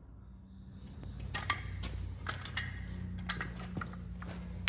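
Irregular metal clinks and clicks from a steel three-jaw gear puller as it is handled and its jaws are set against a hub, starting about a second in, over a low steady hum.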